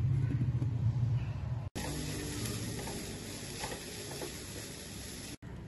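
Mixer grinder running briefly to coarsely crush coconut, cumin, green chilli and garlic: a loud low motor hum that cuts off about two seconds in. A steady hiss follows and slowly fades.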